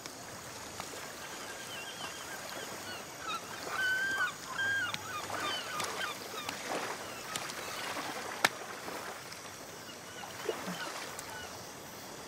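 Quiet shoreline ambience: a faint steady background with a few short, flat-pitched calls from about three to six seconds in, and a single sharp click about two-thirds of the way through.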